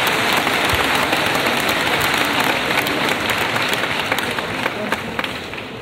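Arena crowd applauding: dense clapping that swells at the start and fades gradually toward the end.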